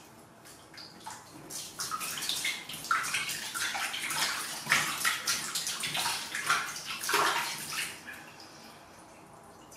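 Water splashing and sloshing in a plastic basin as hands scoop and rub water over a kitten during its final rinse. The splashes are sparse for the first second or so, come thick and irregular through the middle, and die down at about 8 seconds.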